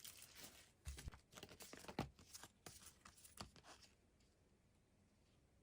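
Parcel packaging being torn open and crinkled by hand: a run of quick rustles and crackles for about four seconds, then near silence.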